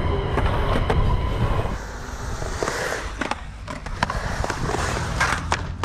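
Skateboard wheels rolling on a concrete bowl, a steady low rumble, with several sharp clacks of the board and trucks striking the concrete.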